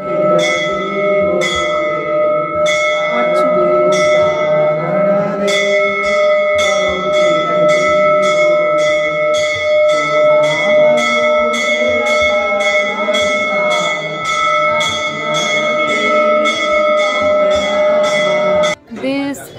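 Temple bell rung for aarti: a steady ringing tone struck over and over, slowly at first and then quicker, a little under twice a second, with voices underneath. It stops abruptly near the end.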